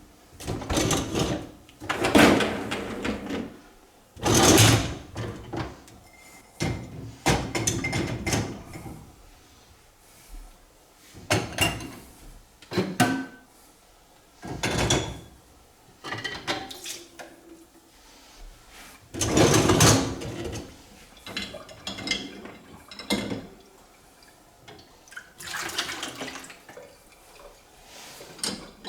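Plates, cups and the dishwasher's racks clattering in irregular bursts as a built-in dishwasher is loaded.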